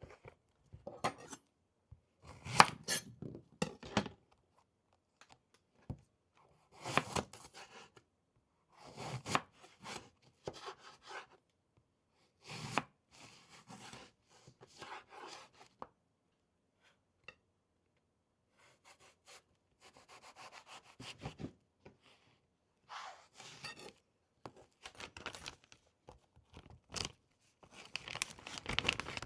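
Food preparation on a cutting board: knife strokes chopping and scraping, in short clusters separated by silences.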